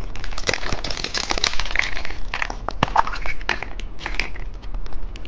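Plastic packaging crinkling, with a run of sharp clicks and rustles, as a plastic capsule toy egg is opened and its wrapped contents unwrapped.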